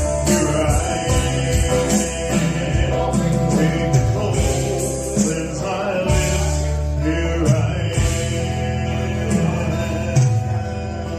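Live gospel band playing the end of a song, with low bass notes under the other instruments and drums and cymbals keeping the beat.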